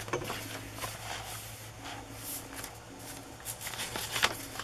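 Paper rustling and soft handling as the pages of a handmade paper junk journal are turned and lifted, with a few sharper paper flicks, the loudest near the end.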